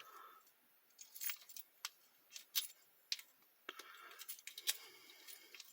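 A small metal padlock and its key being handled, making scattered light metallic clicks and jingles at irregular intervals.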